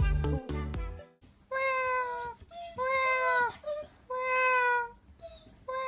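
Music cuts off about a second in. Then a husky-type dog gives three drawn-out, high whining calls of about half a second each, with short yelps between them.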